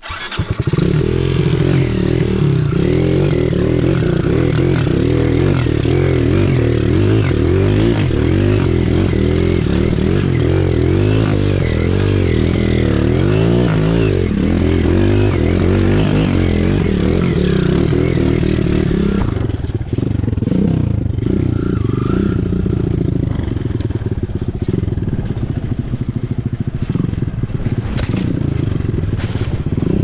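Enduro motorcycle engine running under load on a trail, its pitch wavering up and down with the throttle. A hiss over the engine stops about two thirds of the way through, and the engine runs on.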